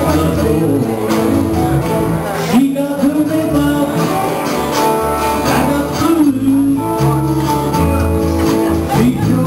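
Country band playing live, with strummed acoustic guitars, an electric guitar and a steady bass line.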